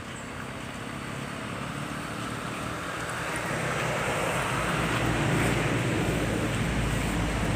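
Engine rumble with a low, steady drone that grows steadily louder over several seconds, as of a motor vehicle or aircraft drawing near.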